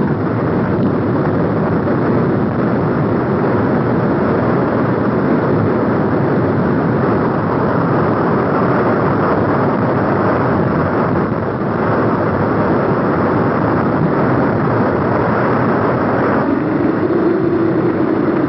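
Steady loud roar of an erupting lava fountain, with a wavering tone coming in near the end.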